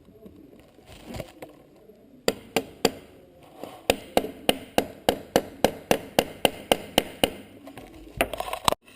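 Kickstart lever of a Honda CRF70/CRF50 being knocked onto its splined shaft: a run of sharp taps, a few at first and then about three a second, ending in a brief rattle.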